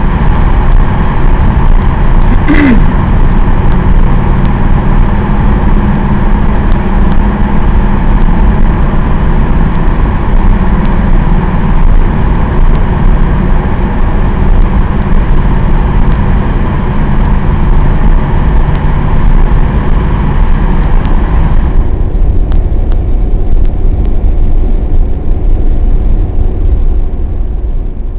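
Mercedes-Benz 190D 2.5's five-cylinder OM602 diesel engine and road noise heard from inside the cabin at a steady cruise through a tunnel. A brief sharp sound cuts in about two and a half seconds in; later the hiss thins out and the sound fades away at the end.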